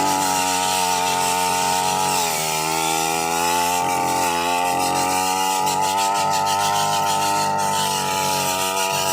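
Small brush cutter engine running at high speed; its pitch drops and comes back up about two seconds in, then holds steady.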